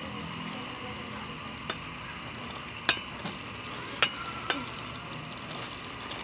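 Chicken livers sizzling in a cream sauce in a pot while being stirred, a steady hiss throughout. A utensil knocks sharply against the pot four times, loudest about three and four seconds in.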